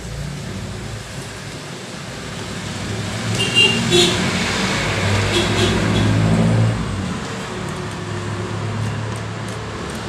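A motor vehicle's engine running nearby, growing louder through the middle and then easing off, with a few light metallic clicks as a brass knob lockset is pressed into the door.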